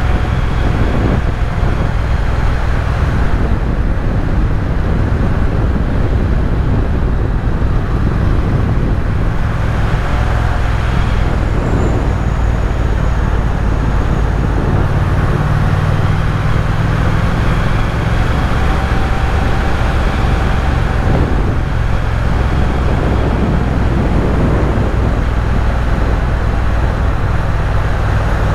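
Triumph Speed Twin's parallel-twin engine running while riding, with steady wind and road noise. The engine note shifts in pitch a couple of times.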